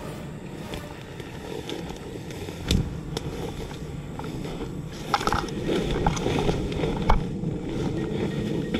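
Footsteps and rustling through tall grass and dry reed stems, with scattered sharp cracks of snapping stems and twigs, the loudest near the end.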